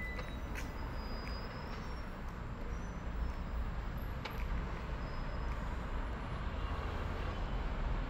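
Steady low rumble of city road traffic, with a couple of faint clicks.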